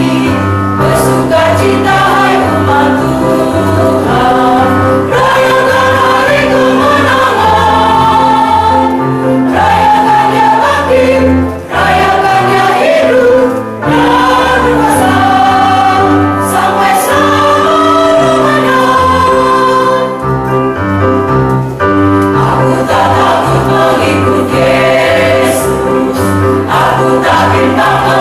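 Mixed church choir of men and women singing together, with short breaks between phrases.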